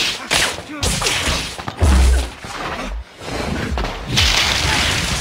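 Film duel sound effects of wand spells: whooshing spell blasts and impacts, with a heavy low thud about two seconds in and a rushing hiss that starts about four seconds in.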